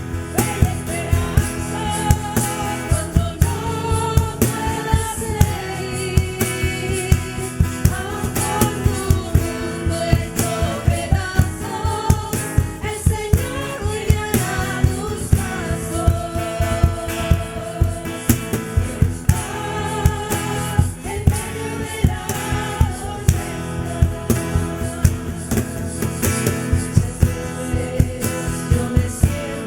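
Christian worship song: a sung melody over band accompaniment with a steady beat.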